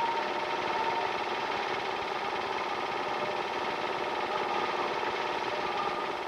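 Super 8 film projector running: a steady mechanical whirr with a fast, even clatter from the film-advance mechanism.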